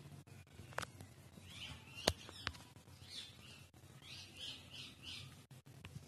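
Faint high chirps in several short groups, with three sharp clicks, the loudest about two seconds in, over a steady low hum.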